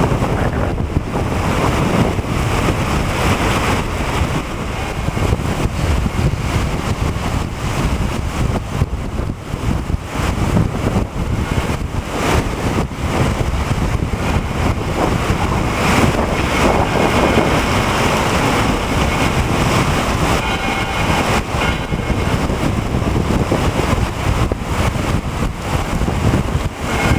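Heavy rainstorm with wind gusting on the microphone: a loud, continuous rush of noise with irregular buffeting.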